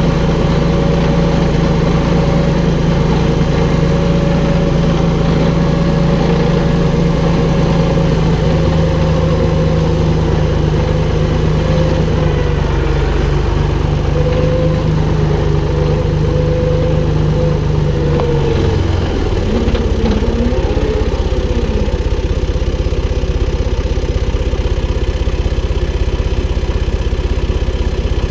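Valtra BF-75 tractor's diesel engine running steadily under load; about two-thirds of the way through its note drops briefly with a short glide, then settles into a lower, steady running.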